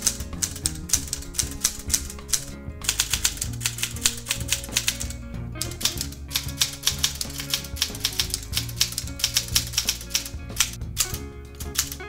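Smith-Corona manual typewriter being typed on in quick runs, keys and typebars clacking against the platen several times a second, with brief pauses between runs, over background music.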